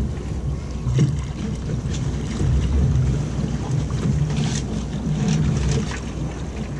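Wind rumbling on the microphone aboard a small fishing boat, with water washing against the hull and a few light knocks.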